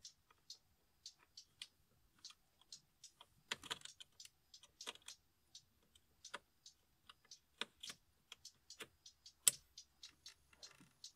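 Plastic wiring connector and loose wires being handled and pushed into place: irregular light plastic clicks and rattles, with one sharp click about nine and a half seconds in.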